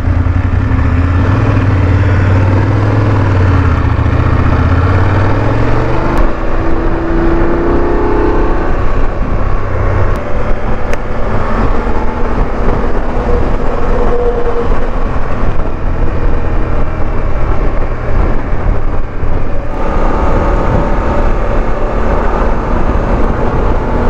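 BMW F 850 GS parallel-twin motorcycle pulling away, its engine note rising as it accelerates in the first several seconds. It then settles into steady wind and road rush at cruising speed.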